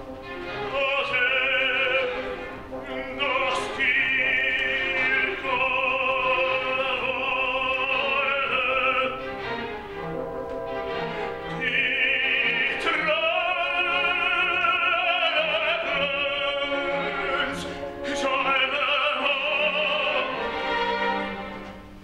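Operatic tenor singing an aria with wide vibrato over orchestral accompaniment, in long sustained phrases with brief breaks between them.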